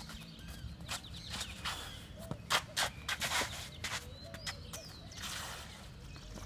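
Tennis shoes on a clay court: quick running footfalls and stops, with gritty scraping slides as the player changes direction in a footwork drill.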